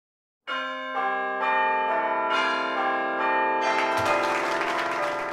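Church bells ringing a peal, strokes coming about twice a second with their tones ringing on and piling up over each other. Starts about half a second in and swells fuller about four seconds in.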